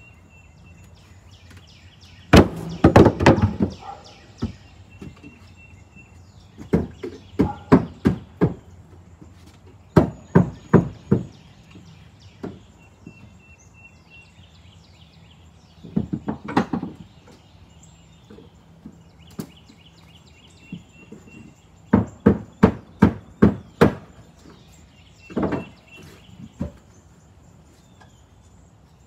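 Hammer blows on wood in short bursts of several quick strikes, three or four a second, with pauses between bursts, as boards of the wooden porch step are nailed.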